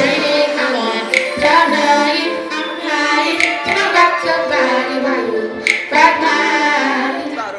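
A song with a high singing voice gliding through a melody over backing music, with almost no low bass.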